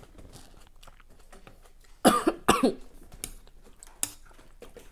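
A woman coughs twice in quick succession about two seconds in, after a sip of spicy chili broth. Near the end there is a single sharp click as her ceramic soup spoon goes back into the bowl.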